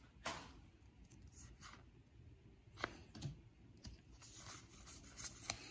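Faint, sparse clicks and light rustles of a stack of Pokémon trading cards being handled and turned over in the hands, with one sharper click a little under three seconds in.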